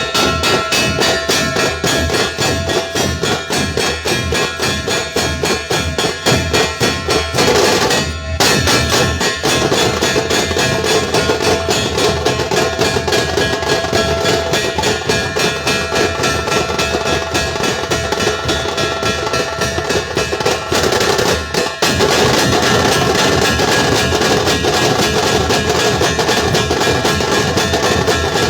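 Dhol-tasha ensemble playing: big barrel-shaped dhol drums and high, sharp tasha drums beaten in a fast, dense rhythm. There is a momentary break about eight seconds in, and the playing changes pattern a little after twenty seconds.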